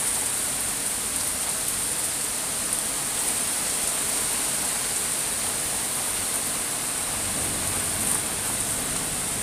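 Heavy rain pouring steadily, a dense, even hiss with no letup.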